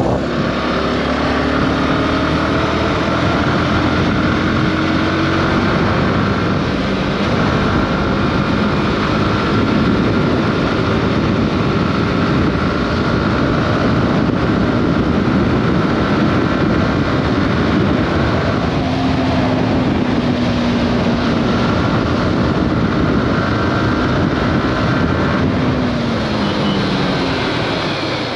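Sport motorcycle riding at speed, heard on board: a steady rush of wind over a running engine. The engine note climbs over the first few seconds as the bike speeds up to about 100 km/h, drops about two-thirds of the way through, and falls again near the end as it slows to around 60 km/h.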